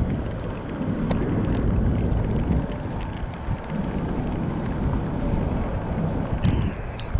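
Wind buffeting the microphone of a camera on a moving electric scooter in the rain, over a steady hiss of tyres on wet road. A few sharp ticks stand out, several of them near the end.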